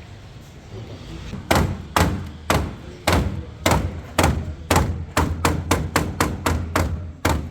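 A run of sharp, hard knocks, starting about a second and a half in at about two a second and quickening to three or four a second towards the end.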